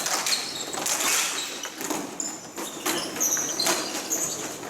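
Ball hockey game play: many sharp clacks and knocks of sticks on the ball and playing surface, with short high squeaks scattered through.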